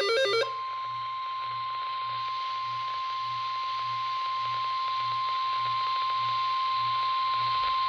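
NOAA Weather Radio warning alarm tone, a single steady high tone of about 1050 Hz over radio hiss, signalling that a tornado warning is about to be read. It begins about half a second in, as a short burst of warbling data tones cuts off.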